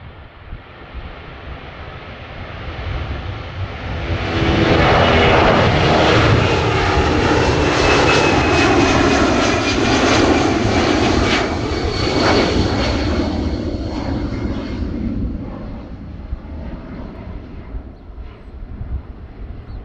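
Boeing C-17 Globemaster III's four turbofan engines at takeoff power as the jet climbs out and passes by. The sound builds, turns loud about four seconds in with a whine that slides down in pitch as it goes by, then fades from about fifteen seconds on.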